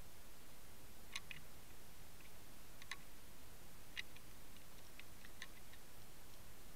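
Sharp, irregular clicks and ticks over a faint steady hiss, picked up by an underwater camera on a fishing rig; the loudest come about a second apart, with a quick cluster of smaller clicks toward the end.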